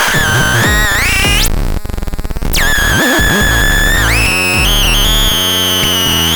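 Electronic synthesizer tones from the Vapetron CCS 7: buzzy pitched tones slide up and down, broken by about a second of pulsing noise, then a high held tone that dips once and low notes that step in pitch.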